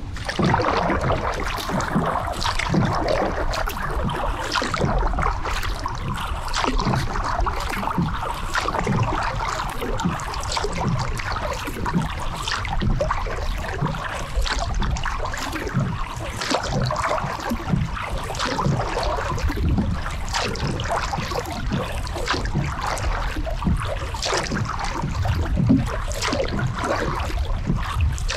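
Kayak paddle strokes through calm river water: splashes and drips every second or so, with water trickling.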